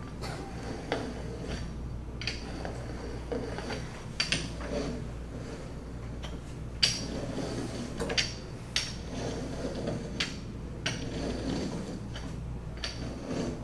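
Irregular sharp knocks and clicks of a rolling pin and a hand tool against a wooden table as dough is rolled out and trimmed, over a steady low hum.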